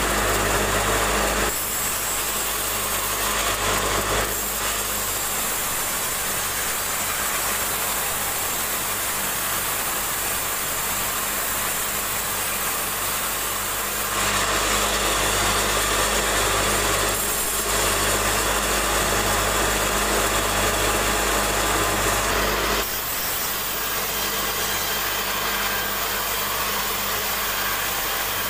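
Sawmill band saw running and cutting a log as it is fed past the blade, a steady motor hum under the hiss of the cut. The sound changes abruptly a few times, near the start, about halfway through and toward the end.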